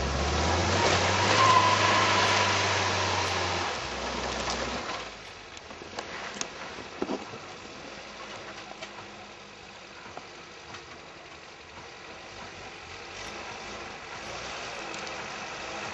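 Pinzgauer off-road truck's engine working as it drives through deep snow. It is loud and steady for about the first four to five seconds, then drops to a quieter run with a few scattered clicks.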